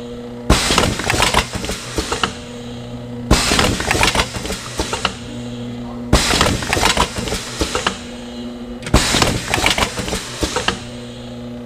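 Rotary cup filling machine running through its cycle: about every three seconds a sudden noisy burst of clatter, then a steady machine hum until the next stroke.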